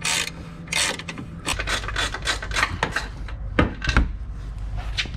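Ratchet wrench working the strut top-mount nuts, a run of rasping clicks and scrapes, with two louder metal knocks between three and four seconds in.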